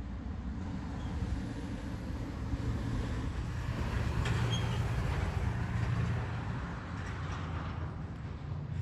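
A road vehicle passing: engine rumble and tyre noise swelling to a peak about halfway through, then easing off.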